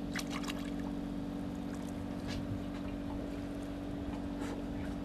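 Fishing boat's engine running with a steady drone, with a few light clicks and knocks on deck.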